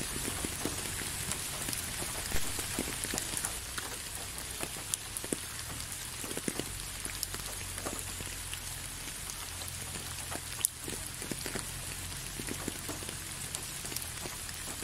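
Steady rain falling, with many separate drops tapping close by.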